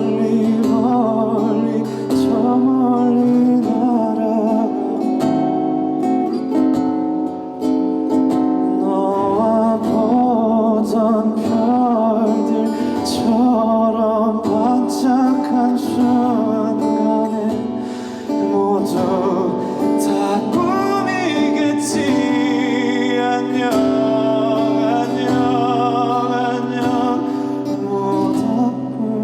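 Live band music with guitar, and a voice singing a melody over it.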